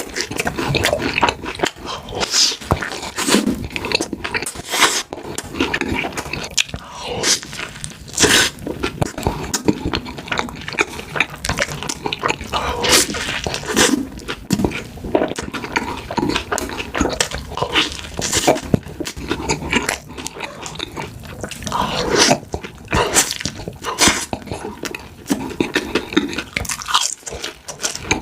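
Close-miked eating of fast food: a person biting and chewing, with repeated crunches and wet mouth sounds coming irregularly and closely spaced.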